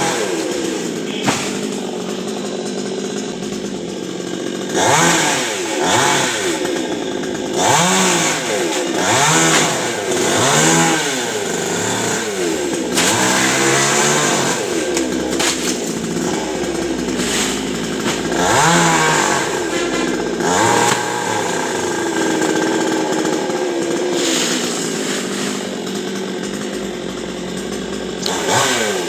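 Chainsaw engine revving up and dropping back again and again, then running more steadily near the end.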